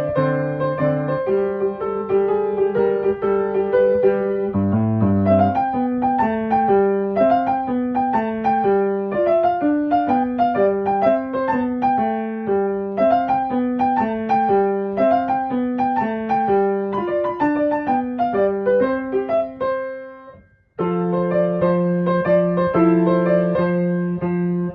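Background piano music. About twenty seconds in it fades out, and a new passage starts abruptly.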